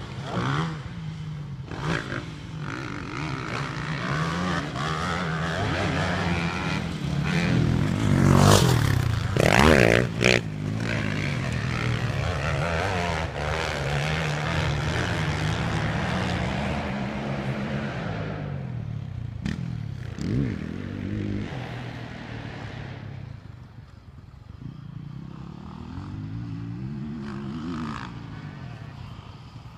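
Motocross bike engines revving up and down on the track, their pitch rising and falling again and again with the throttle. The sound is loudest for a couple of seconds about a third of the way in and grows fainter toward the end.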